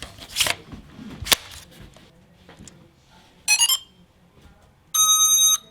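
A few sharp handling clicks, then a quick electronic start-up jingle of short stepped tones followed by one steady electronic beep of about half a second.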